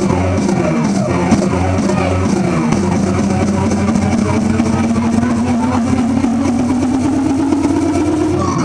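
Loud music track; in its second half a long held note slowly rises in pitch.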